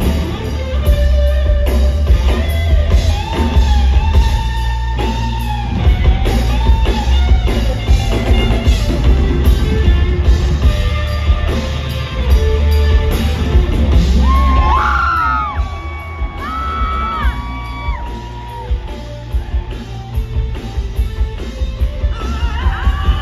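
Live rock band playing loud: a hollow-body electric guitar plays a lead line with bent notes and a few long held notes that slide in pitch about halfway through, over bass and drums.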